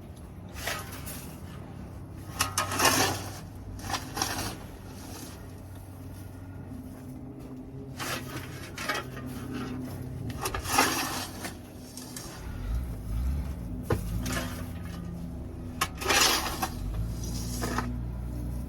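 Dry, dusty chicken-coop bedding being scraped up and scooped, in separate scraping strokes a few seconds apart.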